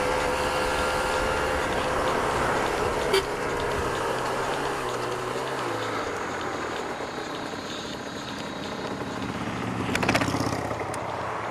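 Aprilia RS125's single-cylinder two-stroke engine running as the bike is ridden, then easing off as the throttle closes and the bike slows. There is one sharp knock about three seconds in and a short rattle near the end.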